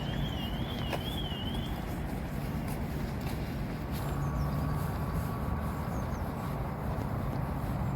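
Steady low rumble of passing traffic, with a high, evenly warbling whistle for the first second and a half or so.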